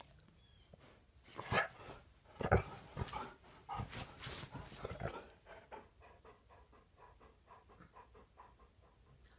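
A golden retriever panting quickly and evenly. Near the start there is a run of loud thumps and scuffles.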